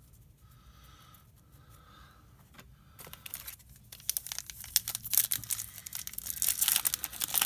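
Foil trading-card pack wrapper being crinkled and torn by hand: a dense, loud crackle that starts about three seconds in and grows louder toward the end, after a quiet stretch of light card handling.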